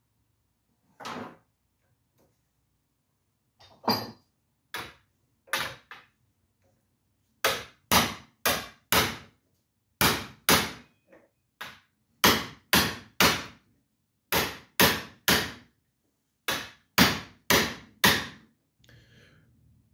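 Hammer blows on the seized metal hoist spindle, a few scattered strikes and then quick runs of two to four at about two a second, each with a short ring, as the man works at its rusted-in screws.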